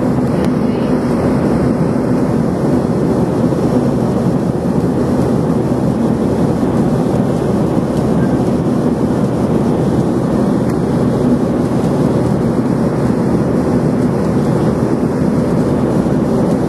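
Airliner cabin noise in flight: a steady, even rush of engine and airflow noise, heard from inside the passenger cabin.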